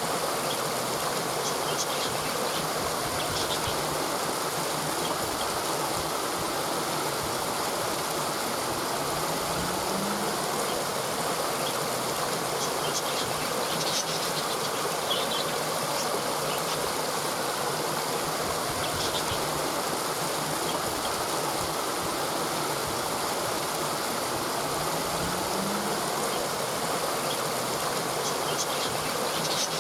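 Waterfall: a steady rush of falling water, with faint high chirps that come and go in clusters and a soft low rising tone twice.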